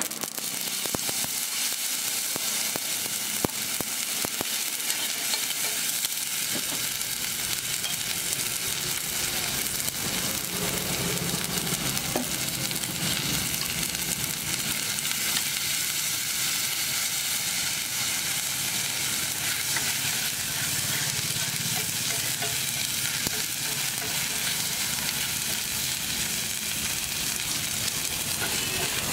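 Steady sizzling of hot oil frying chopped ingredients and egg on a flat griddle, with a few light clicks in the first seconds.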